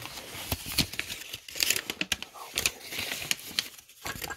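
A folded paper note being opened by hand: irregular crinkling and rustling of paper, with sharp crackles.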